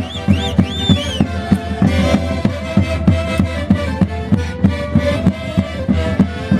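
Andean Santiago music played by an orquesta típica: a violin-led melody with quick sliding ornaments over a steady beat of about three strokes a second.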